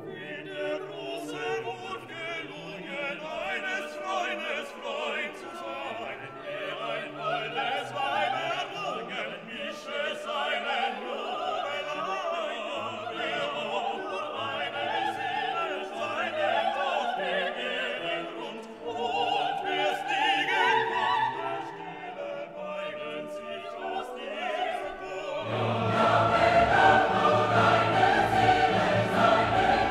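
Background music: classical singing in an operatic style with choir and orchestra, growing louder and fuller about 25 seconds in.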